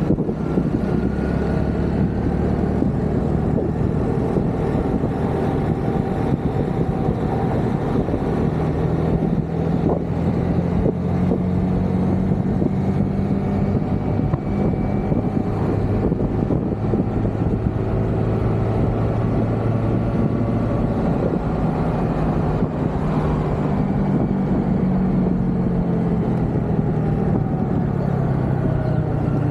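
Honda scooter engine running under way, its note rising and falling with speed, over a steady rushing noise of wind and road.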